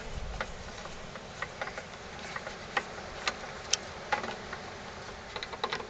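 Irregular small clicks and ticks as screws are undone from a Briggs & Stratton carburetor mounted on its fuel tank, with a quick run of clicks near the end.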